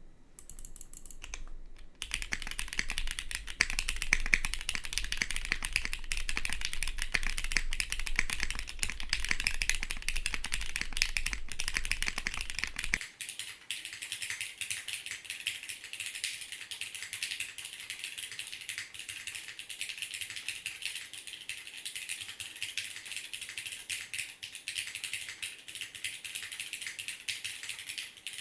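Continuous fast typing on a plateless custom mechanical keyboard with lubed, filmed Cherry MX2A Orange switches on 53 g springs and GMK keycaps: a dense run of key clicks. For the first half there is a deep low thud under the keystrokes. It drops away suddenly about thirteen seconds in, leaving lighter, higher key clicks.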